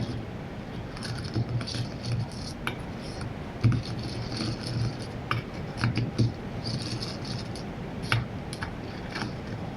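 Scattered light clicks and rattles of small metal hand tools and engine parts being handled as a Traxxas Nitro 3.3 model engine is taken apart by hand.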